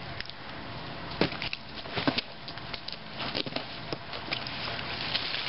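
Irregular sharp cracks and clicks with rustling: branches and dry leaves of a tree being climbed.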